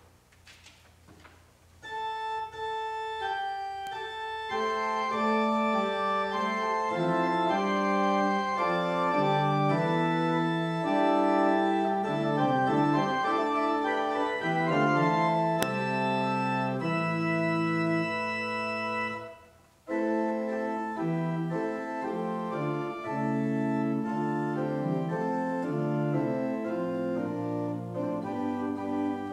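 Pipe organ playing held chords. It comes in about two seconds in and fills out with lower notes a couple of seconds later. It breaks off briefly about two-thirds of the way through, then plays on.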